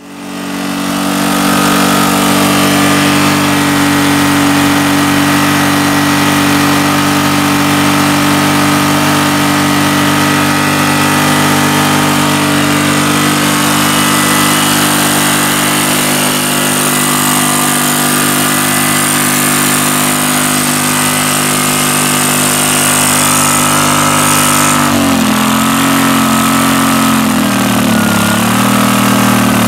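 Yamaha EF2800i generator's engine running steadily on gasoline vapour fed through a hose and ball valve. Near the end its speed dips and wavers several times as the vapour valve is worked.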